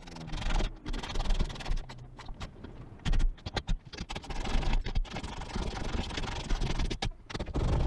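Socket ratchet tightening bolts on a welded steel bed frame: irregular clicks and metal scrapes, with bursts of low rumble.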